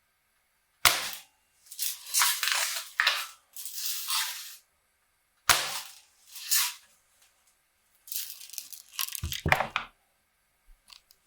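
Sheridan Cowboy BB rifle fired twice, two sharp cracks about four and a half seconds apart, with scraping handling noises between and after the shots.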